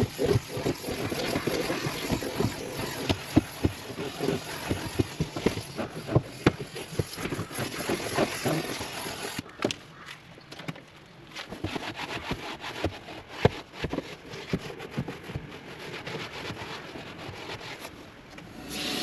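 Steam cleaner wand hissing and scrubbing over car floor carpet, with scattered knocks and clicks of the wand; it gets quieter about halfway through.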